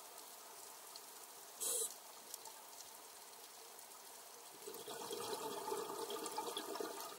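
Underwater ambient noise: a steady watery hiss, a short louder burst of noise about a second and a half in, then louder, rougher crackling from about four and a half seconds on.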